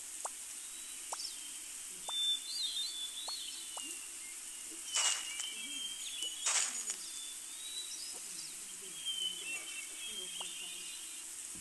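Birds chirping over a steady outdoor hiss, with scattered short calls. About halfway through come two brief swishes.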